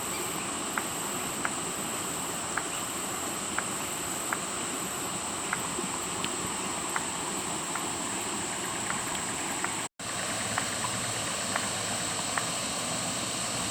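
Steady rush of flowing floodwater, with insects droning high above it and a short chirp repeating about every three-quarters of a second. The sound cuts out for an instant about ten seconds in.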